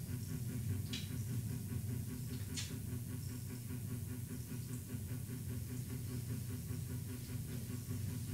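Steady low mechanical hum of a room, like a fan or air handler running, with a couple of faint light clicks about one and two and a half seconds in.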